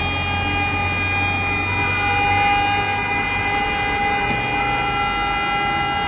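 Civil-defence air-raid sirens sounding a city-wide alarm, several steady tones at different pitches held together, a new one joining about two-thirds of the way in, over street traffic.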